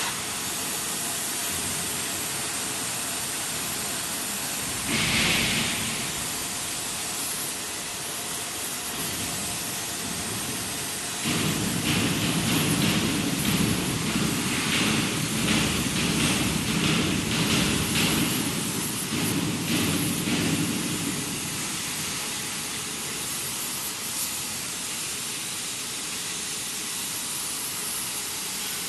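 Steady hiss of a hand-held heating torch blowing on polyethylene lining as it is worked onto a steel mixer shaft. A brief louder burst of hiss comes about five seconds in, and a lower rumble joins for several seconds around the middle.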